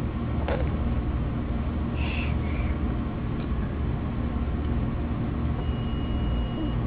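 A steady low rumble of room and recording noise, with a few faint, short, high squeaks: one falling squeak about half a second in and a couple of small chirps about two seconds in.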